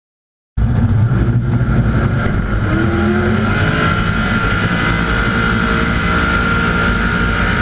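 Drag-racing engines running loudly at the start line in burnout smoke, among them a twin-turbo big-block Chevy, with a steady high whine over the engine noise and a short rise in revs about three seconds in. The sound starts abruptly about half a second in.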